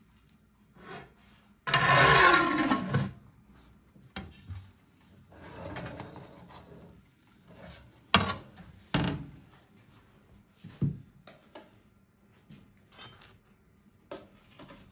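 A metal baking tray being pulled from a countertop electric oven and handled, with rubbing and scraping and a few sharp clanks, then a metal spatula knocking on the tray as buns are lifted off. The loudest sound, near the start, is a pitched sound a little over a second long that falls steadily in pitch.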